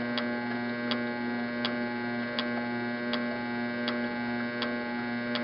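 Spark plug on a GM LS2 ignition coil snapping with a sharp tick about once every three-quarters of a second, one spark per turn of the slowly spun engine simulator: the spark has just come on at a very low cranking speed of about 66 RPM. A steady electric motor hum runs underneath.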